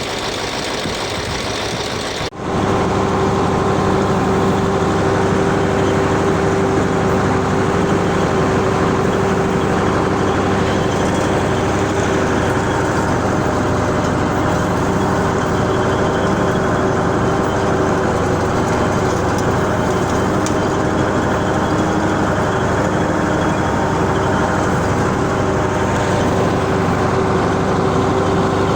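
T-150K tractor's diesel engine running steadily, with its newly fitted fan drive. About two seconds in the sound breaks off sharply for an instant and resumes a little louder and steady.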